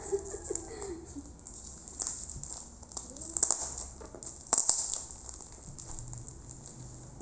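Plastic wrapping on a tightly wrapped parcel crinkling and crackling as it is handled and pulled at, with two sharp louder crackles about three and a half and four and a half seconds in.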